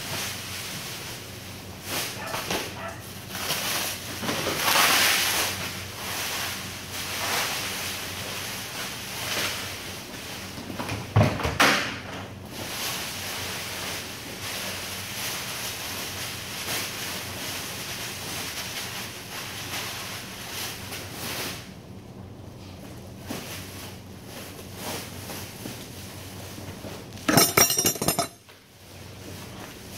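Rustling of a plastic bag and raw chicken scraps as they are tipped by hand into a woven sack, with a sharp knock about eleven seconds in and a loud clattering rattle near the end, over a steady low hum.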